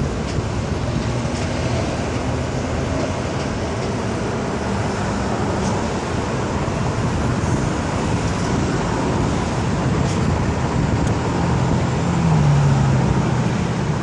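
Steady road traffic noise from a busy multi-lane highway, mixed with wind on the microphone. A louder low engine note from a passing heavy vehicle swells near the end.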